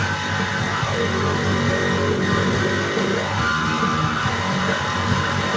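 Instrumental rock music with electric guitar and bass guitar, no singing.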